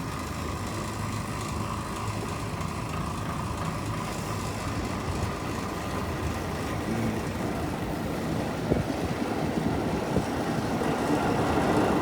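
Blower-type air cooler running with an abnormal noise: a steady mechanical hum that grows louder toward the end, with one sharp knock a little before the end. The owner suspects the fan is spinning off-centre or resonating, perhaps from a bad mounting.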